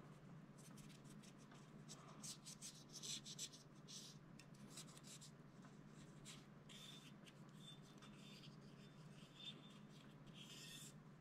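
Faint, scratchy rubbing of a cotton swab scrubbing the crevices of a Springfield XD(M) pistol slide, in short irregular strokes.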